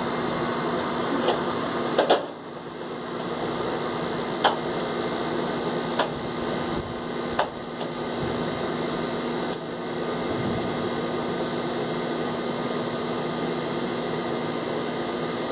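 Gas grill's igniter clicking about six times, a second or two apart, as the burner is being lit, over a steady mechanical hum.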